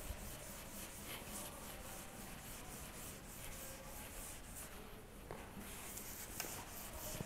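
Felt chalkboard duster rubbing across a blackboard in quick repeated wiping strokes, a faint, dry scrubbing that pauses briefly about five seconds in.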